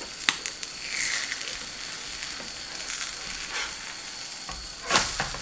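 Seafood pancake sizzling steadily in oil in a frying pan, with a sharp click of the spatula against the pan just after the start. Near the end it is flipped and lands in the pan with a slap, the loudest sound.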